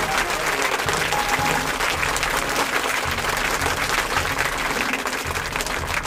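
Crowd applause, steady dense clapping, over background music with a pulsing bass line.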